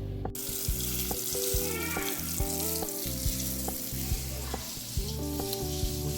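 Food sizzling and frying in a hot pan, with scattered clicks of a utensil stirring, over instrumental background music. The sizzle starts suddenly just after the start.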